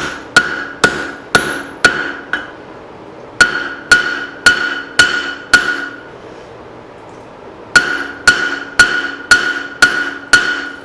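Straight-peen hammer striking a hot leaf-spring hatchet head on an anvil's horn and flat. The blows come about two a second in three runs with short pauses between, each blow ringing.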